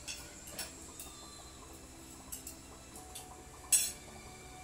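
Cutlery clinking against plates: a few light clicks, and one louder, sharper clink about three quarters of the way through.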